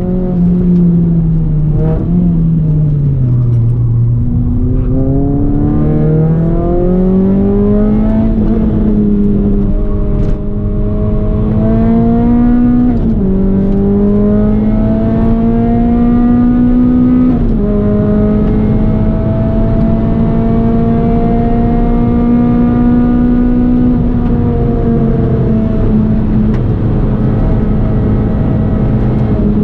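Renault Clio 197's 2.0-litre four-cylinder engine being driven hard on track. The revs fall away in the first few seconds, then climb steadily, with two sudden drops in pitch about 13 and 17 seconds in as it shifts up. It then holds high revs and eases off near the end.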